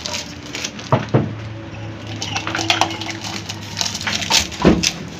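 Small kitchenware pieces, dishes and utensils, clinking and knocking irregularly as they are handled, with louder knocks about a second in and again near the end.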